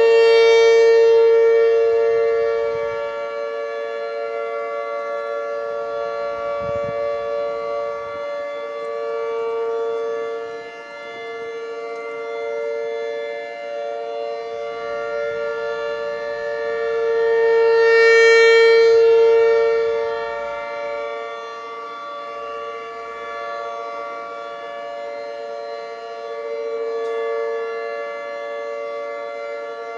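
Outdoor warning sirens, a Federal Signal 2T22 and an ASC T-128, sounding a steady alert tone during a siren test. The chord-like pitch holds without rising or falling, while the loudness swells and fades every several seconds as the rotating horns sweep around, loudest near the start and again about 18 seconds in.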